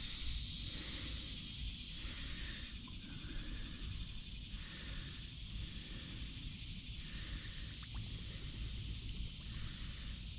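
Motor oil being poured into a new spin-on oil filter, a faint steady trickle, pre-filling the filter to the top so the engine does not start dry.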